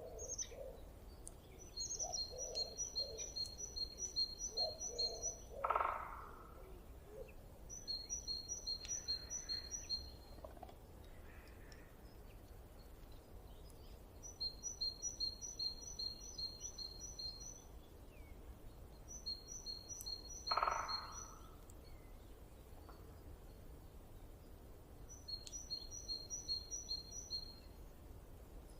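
Forest ambience: a bird sings five phrases of rapid, evenly spaced high notes a few seconds apart. A shorter, lower call comes twice, about six seconds in and about twenty seconds in, over a faint low background rumble.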